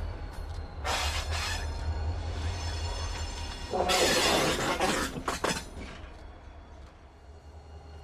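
Slow-moving freight train with a low engine rumble underneath. About a second in, and again louder from about four seconds in, come rattling, clanking bursts of railcar hardware, followed by a few sharp metallic clanks before it quiets.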